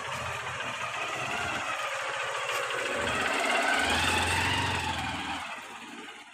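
Motorcycle engine running as the bike is ridden off at low speed. The engine sound drops off briefly about three seconds in, then fades near the end as the bike moves away.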